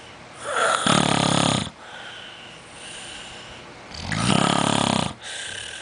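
A sleeper snoring: two long, loud snores about three and a half seconds apart, with quieter breathing between them.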